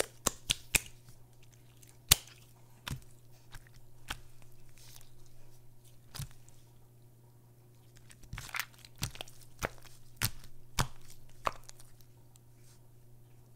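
Glossy slime squeezed and stretched by hand, giving irregular sharp wet clicks and pops as air pockets in it burst. The loudest pop comes about two seconds in, and there is a busier run of pops in the second half, over a faint steady low hum.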